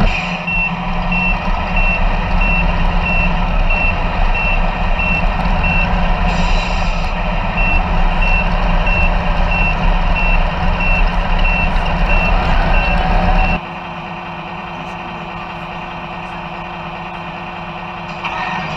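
An electronic beeper sounding evenly repeated beeps at one steady pitch over a loud low engine-like hum. Both stop suddenly about three-quarters of the way through, leaving a quieter steady background.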